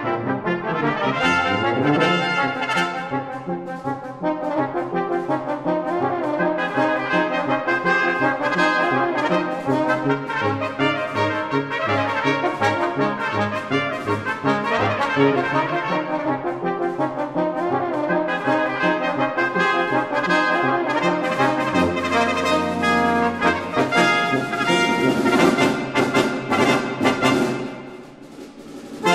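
Instrumental background music led by brass instruments, dropping briefly in loudness near the end.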